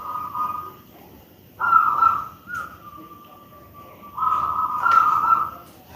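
Big-voiced local zebra dove (perkutut) cooing, clear whistle-like notes in phrases: a loud note about a second and a half in that trails into a long softer held coo, and another loud phrase about four seconds in.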